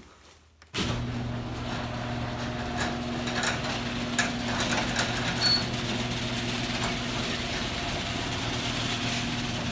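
Audi A4 B6 1.8T's turbocharged four-cylinder engine idling steadily, cutting in abruptly about a second in, with a few light ticks over the running.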